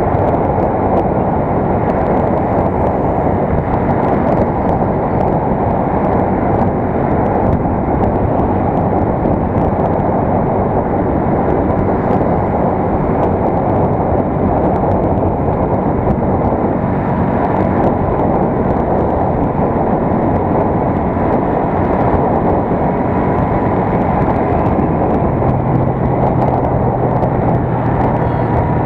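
United US 125 motorcycle's single-cylinder four-stroke engine running steadily at road speed under a loud, even rush of riding noise. A lower, steadier engine tone comes up near the end.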